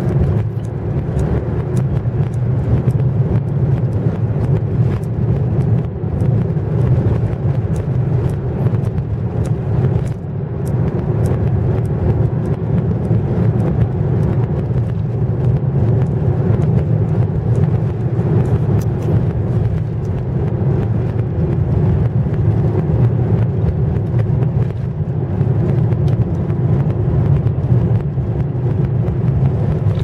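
Car driving: a steady low rumble of engine and road noise, with scattered faint ticks.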